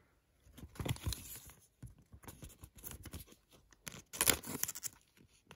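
A stack of baseball trading cards being handled: card stock rustling and sliding against card stock in several short bursts, loudest about four seconds in.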